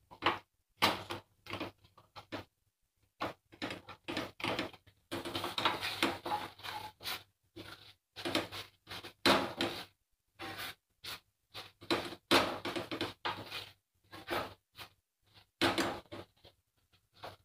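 Silicone spatula stirring and scraping crumbled paneer and melting sugar around a nonstick pan as it roasts for burfi, in short irregular strokes with brief gaps between them.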